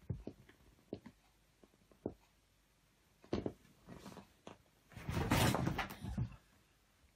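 Scattered soft knocks and bumps, then about five seconds in a loud scuffling scramble lasting about a second: a startled cat bolting off a leather armchair.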